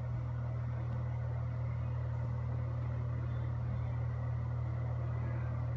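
Akari ceiling bathroom exhaust fan running steadily: a constant low motor hum under a soft rush of moving air.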